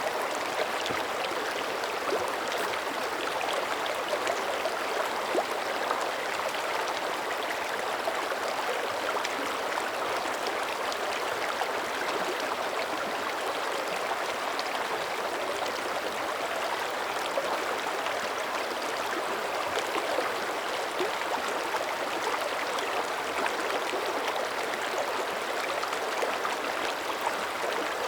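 Mountain creek flowing steadily, an even rush of running water with small splashes throughout.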